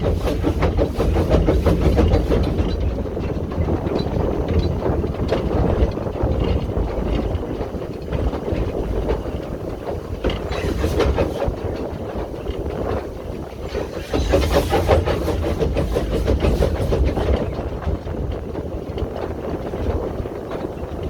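Footplate sound of a small steam tank locomotive under way with the regulator open: exhaust chuffing and the wheels running on the rails, with a louder spell of chuffs from about 14 seconds in.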